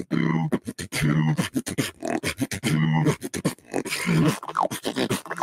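Beatboxing heard over a voice-chat call: a fast run of mouth-made clicks and snare-like hits with short, low hummed bass notes about once a second, and a brief rising squeal about four and a half seconds in.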